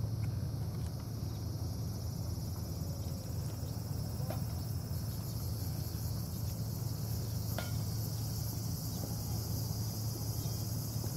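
Steady high-pitched insect chorus over a constant low rumble, with a few faint clicks.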